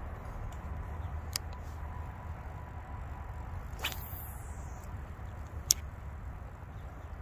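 Steady low outdoor rumble, with a few sharp clicks, the loudest near the end, and a brief swish that falls away about four seconds in.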